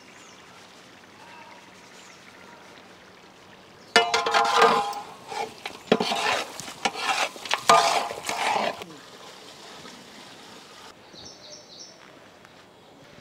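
Spices being stirred into mutton cooking in a pot: for about five seconds from four seconds in, a ladle scrapes and knocks against the pot. Before and after, the masala frying gives a low, steady sizzle.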